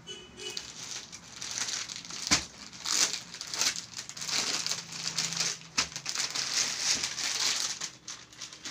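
Plastic-wrapped suit-fabric packets crinkling and rustling as they are handled and laid out on a table, with a couple of sharp clicks.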